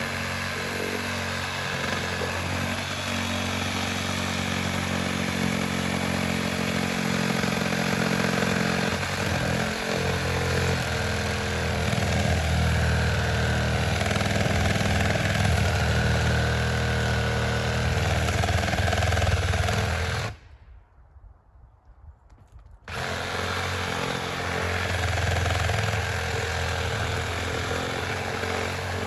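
Chainsaw running steadily. It cuts out abruptly for about two seconds roughly twenty seconds in, then runs again.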